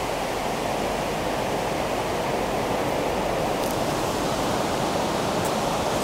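A steady rushing noise, even and unbroken, with a couple of faint ticks near the end.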